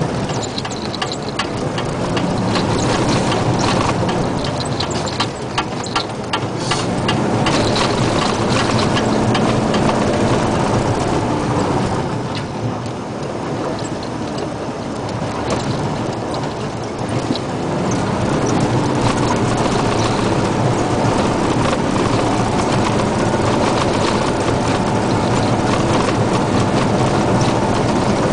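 Isuzu Giga dump truck's diesel engine running steadily as it travels a rough dirt road, with sharp clicks and rattles over the first several seconds. The sound eases a little around the middle.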